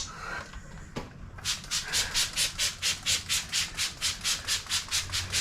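Rapid rhythmic rubbing or scrubbing, about five short rasping strokes a second, starting about a second and a half in.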